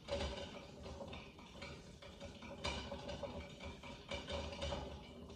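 Open-faced spinning reel being cranked steadily by hand, its gears whirring quietly as new fishing line winds onto the spool.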